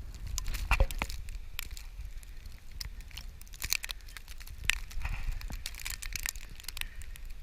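Footsteps crunching through deep, packed snow: a run of irregular crunches and crackles over a steady low rumble.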